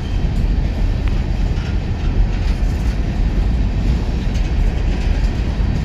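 Empty coal hopper cars of a BNSF freight train rolling past, a steady low rumble with faint clicks from the wheels.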